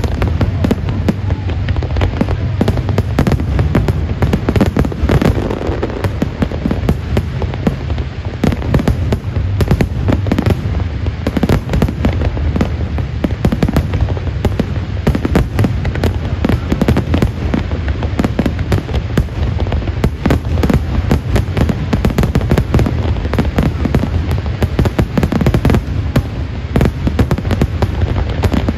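Fireworks display: a dense, unbroken barrage of aerial shells bursting, many sharp bangs and crackles every second over a steady low rumble.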